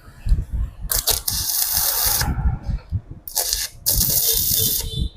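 Sekko MIG 250A gasless flux-core MIG welding arc crackling in two short bursts, each about a second long, as two pieces of stainless steel are tack-welded together.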